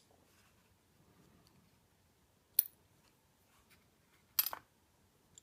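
Two sharp little metallic clicks about two seconds apart, the second a brief clatter: small pins from a disassembled ABUS C83 padlock being handled and set down while they are shown one by one.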